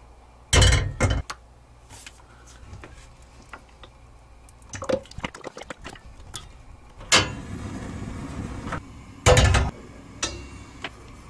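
An iron frying pan knocked down onto a gas hob, then cooking oil poured from a plastic jug into the pan for a couple of seconds, with clunks and clicks of handling and a loud knock near the end.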